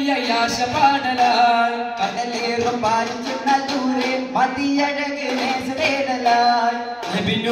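A male voice sings a Malayalam Islamic devotional song in long, bending melodic lines, over the repeated sharp strokes of daf frame drums played by the troupe.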